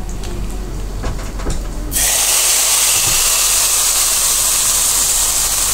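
A tadka of curry leaves and cumin in hot ghee and mustard oil sizzling faintly in a wok. About two seconds in, a sudden loud, steady sizzle starts as the hot tempering hits the pot of kadhi.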